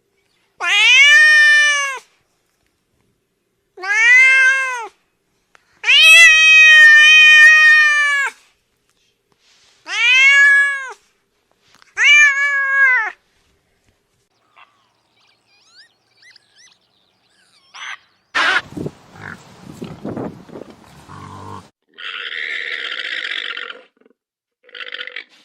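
A cat meowing loudly five times, each meow rising and falling in pitch, the fourth one held longest. After that come quieter, different sounds: a sharp click, then a short buzzy, rasping call near the end.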